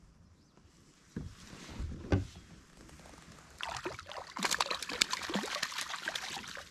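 A few dull thumps on a kayak about a second in, then a largemouth bass thrashing and splashing at the surface beside the kayak as it is scooped into a landing net. The splashing is loud and crackling.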